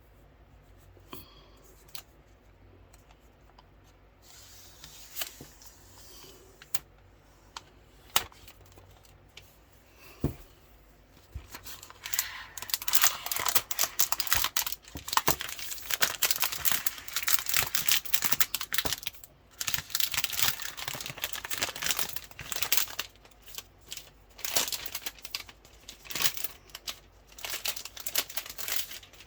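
Packaging being handled and unwrapped: a few scattered taps and clicks, then from about twelve seconds in, loud continuous crinkling and tearing of wrapping.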